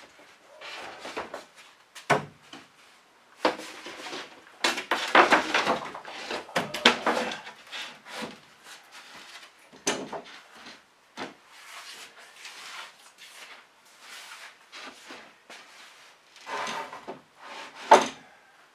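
Wooden shelf boards scraping and rubbing against a wooden shelving frame as they are pushed into position by hand, with several sharp wooden knocks, the loudest near the end.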